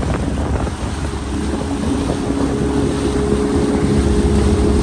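Motorboat engine running steadily under way, a constant low hum with wind buffeting the microphone.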